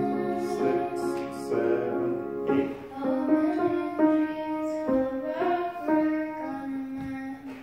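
A young girl singing into a microphone, accompanied by a grand piano.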